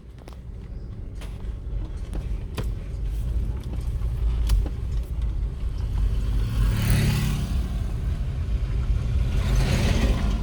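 A motor vehicle driving along a road: a steady low rumble that grows louder as it goes, with two louder rushing swells about seven and ten seconds in.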